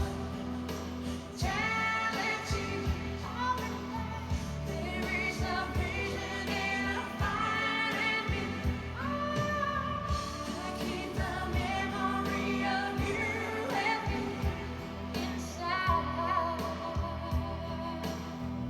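A song playing: a singing voice holding and gliding between notes over instrumental accompaniment.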